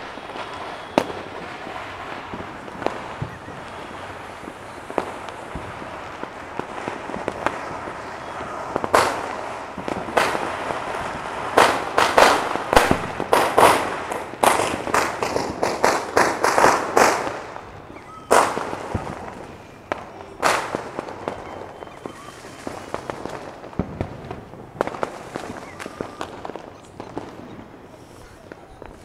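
Fireworks and firecrackers going off: scattered single bangs, then a rapid string of cracks in the middle, thinning out again toward the end, over a steady background hiss.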